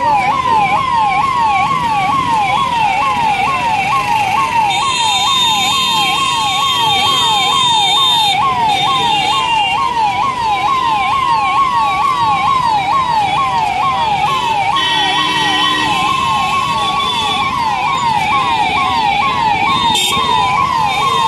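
Two vehicle sirens sounding together: one in a fast yelp of about three sweeps a second, the other in a slow wail rising and falling every few seconds. The convoy sirens run over the low din of a crowded street. A shrill steady high tone joins for a few seconds about five seconds in.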